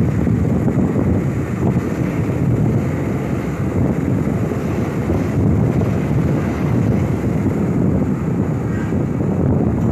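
Steady driving noise of vehicles on the road, a dense low rumble with wind buffeting the microphone.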